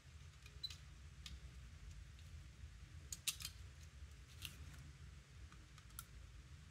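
Faint, sharp clicks and ticks, a handful of them with the loudest about three seconds in, as two small circuit boards of a Hermes-Lite SDR transceiver kit are handled and fitted together at their header pins, over a low steady hum.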